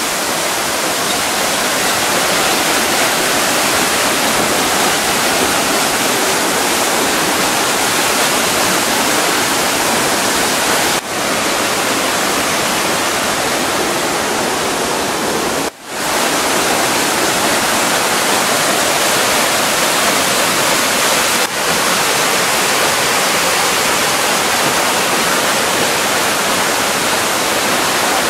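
Salto Álvar Núñez waterfall at Iguazú Falls: a loud, steady rush of falling water. It briefly dips three times.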